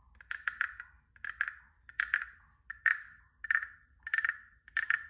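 Frog guiro (croaking frog) played by rubbing a stick along the ridges of its back, giving a croak-like rasp. About seven strokes, one every 0.7 seconds or so.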